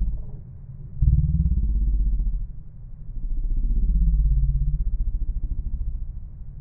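An engine off in the distance revving up and down twice, its deep pitch rising and falling, like a motor vehicle pulling away.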